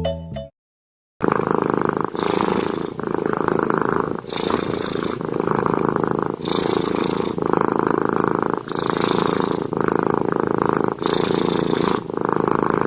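Domestic cat purring loudly close to the microphone, starting about a second in. The purr swells and eases with each breath, about every two seconds.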